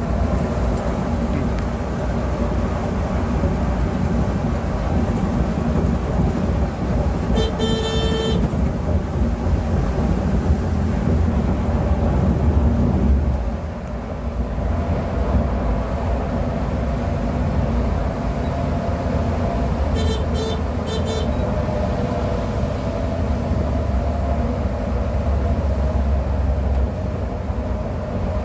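Volvo B11R coach at highway speed, heard from the driver's area: a steady drone of engine and road noise that dips briefly about halfway through. A horn sounds once in a long blast about a quarter of the way in, and again in three or four quick short honks about two-thirds through.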